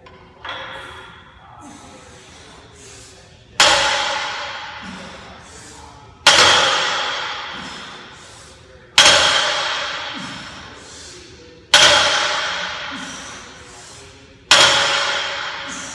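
A 285 lb barbell loaded with iron plates set down on the floor at each deadlift rep: five loud metallic clangs, about one every 2.7 seconds, each ringing out as it fades, after a lighter knock near the start.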